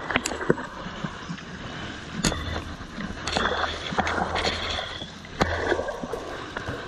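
Water rushing and sloshing around a small skiff being poled through a fast tidal current, with a low rumble coming and going and several sharp knocks.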